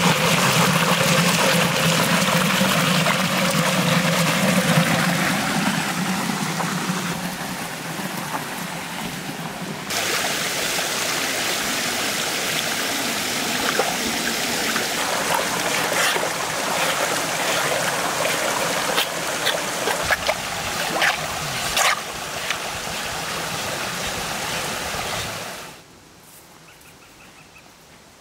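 Stream water running and trickling over rocks, with sharp splashes between about halfway and three quarters of the way through as a large catfish is handled in the water. About two seconds before the end the water sound cuts off, leaving a quiet background.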